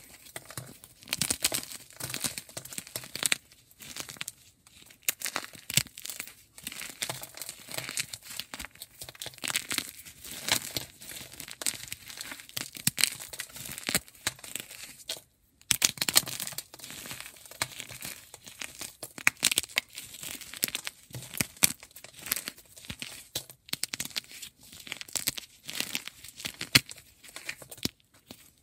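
Blocks of gym chalk being broken apart: a dense, irregular run of crisp crackles and crunches, with a short break about halfway through.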